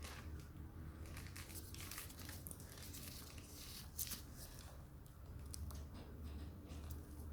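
Packaging being handled: irregular crinkling and rustling, with a sharper click about four seconds in.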